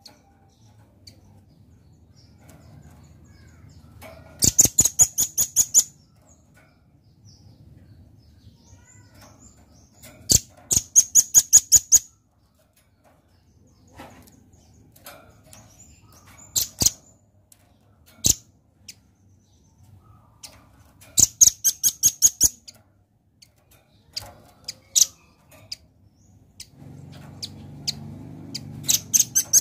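Velvet-fronted nuthatch calling: loud runs of rapid, sharp, high notes, each run lasting a second or two and recurring every few seconds, with a few single short notes between them.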